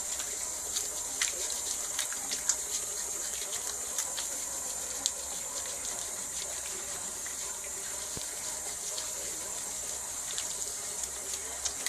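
Tap water running steadily into a sink, with small splashes as hands are rinsed under the stream.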